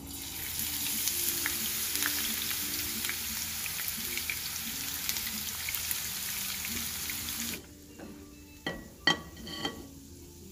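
Chopped onion sizzling as it hits hot oil in a frying pan with dried red chillies, a loud, even hiss that cuts off suddenly about three-quarters of the way through. A few clicks and taps of a spatula on the pan follow.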